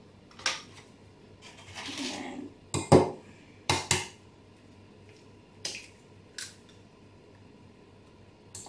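Egg knocked against the rim of a glass mixing bowl to crack it: sharp taps, loudest in two quick pairs about three and four seconds in, then a few lighter clicks of shell.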